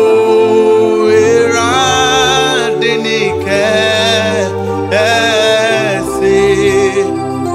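A young man singing a gospel worship song, with long held and gliding notes, over sustained accompaniment chords and low bass notes that change every second or two.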